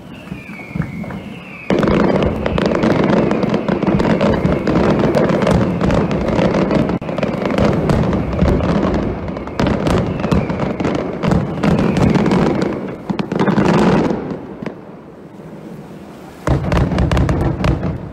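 Aerial fireworks display: a couple of falling whistles at the start, then from about two seconds in a dense, loud barrage of shell bursts and crackling. It eases off a few seconds before the end, then another burst of bangs and crackle follows near the end.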